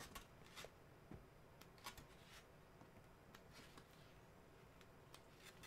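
Near silence with faint, scattered paper rustles and soft ticks as the pages of a small paperback booklet are flipped through.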